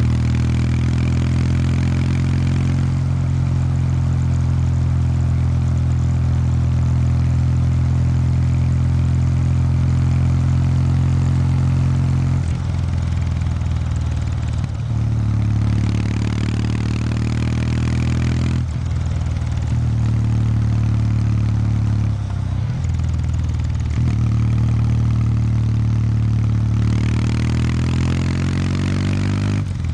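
Kawasaki W800 Street's air-cooled parallel-twin engine and stock exhaust under way, a steady low exhaust note. Several times, about halfway through and again later, the revs drop briefly and pick up again.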